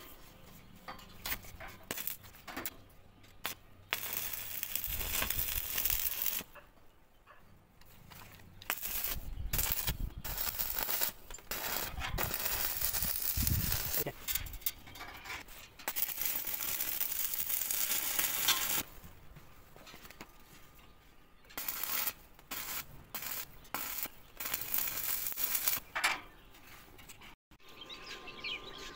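Stick (arc) welding on steel railing: the electrode's arc crackling and sizzling in several runs of a few seconds each, the longest about ten seconds, with short pauses between runs.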